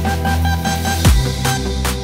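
Background music with a steady beat and a deep held bass; about halfway through a bass note slides sharply down in pitch.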